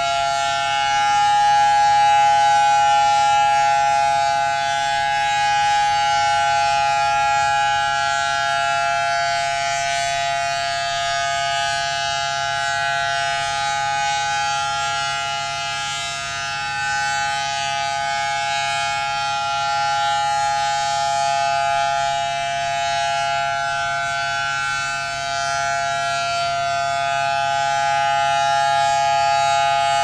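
Federal Signal Thunderbolt 1000AT outdoor warning siren sounding a steady alert tone, swelling and easing only slightly in loudness. Its horn stays pointed one way because the rotator is broken.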